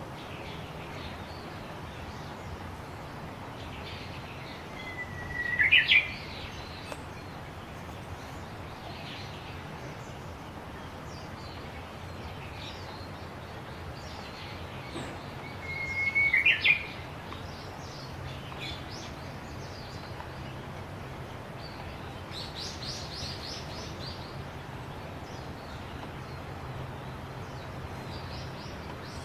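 Japanese bush warbler (uguisu) singing its 'ho-hokekyo' song twice, about ten seconds apart: each time a drawn-out whistled note followed by a quick rising flourish. Fainter high chirps come in between, including a rapid run of notes about two-thirds of the way through, over a steady low hum.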